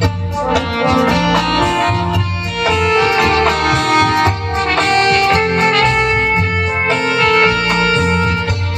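Instrumental dance music with a melody over a steady, repeating bass line, without singing.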